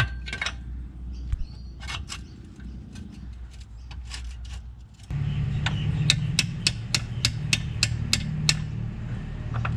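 Metal clinks and knocks of tools and parts as a new gearbox mount is fitted under a car. About five seconds in, a steady low hum comes in with a run of sharp, evenly spaced clicks, about three a second.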